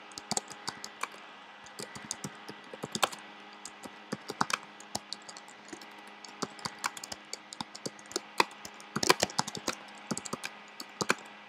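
Typing on a computer keyboard: irregular runs of keystrokes, including space-bar and backspace presses, with a quick flurry about nine seconds in. A faint steady hum lies underneath.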